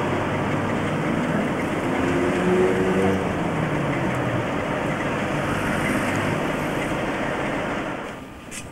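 Steady engine and vehicle noise, with an engine note that rises briefly about two seconds in; it drops away suddenly near the end.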